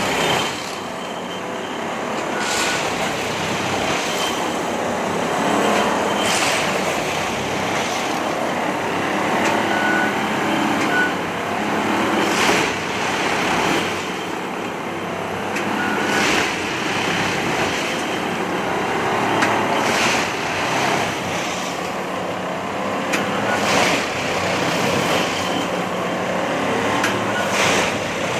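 Railway track repair work: a steady din of machinery with sharp knocks every two to four seconds.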